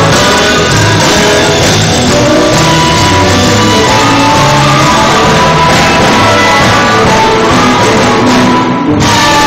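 Live blues band playing: electric guitar, bass guitar and drum kit, with harmonica held over the top. Near the end the high end drops out for a moment.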